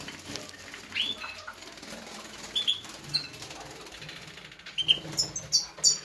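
European goldfinches bathing in a water dish, fluttering their wings and splashing, with short high chirps scattered through and a quick run of louder, higher chirps near the end.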